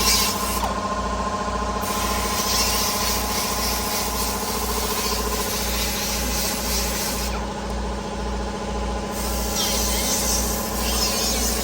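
A power-tool wire wheel spinning and scrubbing rusty metal bare, in two long passes with a pause between, cleaning a spot to give the welder a good ground.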